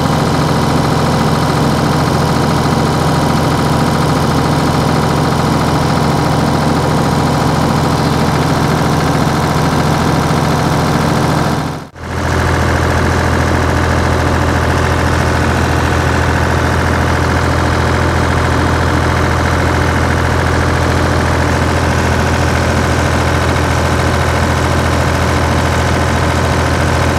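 Ford 4000 tractor engine idling steadily. About halfway through, the sound drops out for a moment and comes back with a deeper note.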